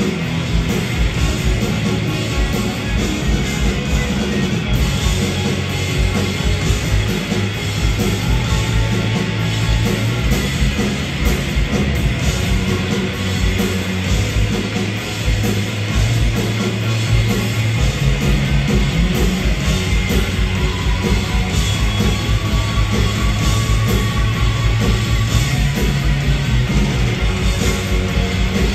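A live punk rock band plays an instrumental stretch at full volume: distorted electric guitars, bass and a drum kit. About two-thirds of the way through, the kick drum settles into a fast, steady beat.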